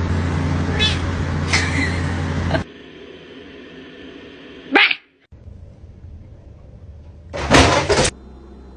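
Short calls from a pet animal in several abruptly cut segments: a few calls over a humming background at first, a brief rising call near the middle, and the loudest call about seven and a half seconds in.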